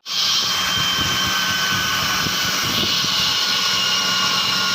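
Window air conditioner running with a loud, steady mechanical noise, whining tones over a low hum, cutting in suddenly. It is the excessive compressor noise that sets in after about five minutes of running, which the owner blames on a faulty compressor.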